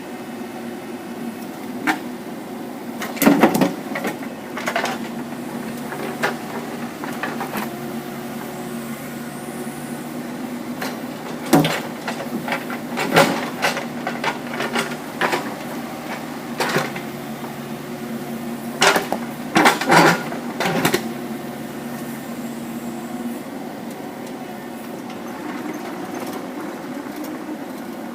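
Kubota mini excavator's diesel engine running steadily while it works, with scattered knocks and clanks from the attachment. The clanks come in clusters a few seconds in, again near the middle, and most densely about two-thirds of the way through.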